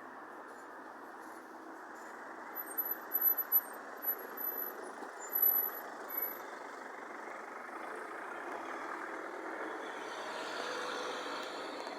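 Screw auger conveyor running steadily as it moves sawdust, with a run of short, very high-pitched squeaks a few seconds in.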